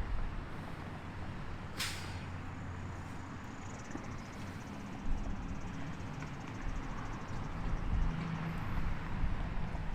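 Low, steady engine rumble of vehicles or heavy machinery, with one short, sharp hiss about two seconds in.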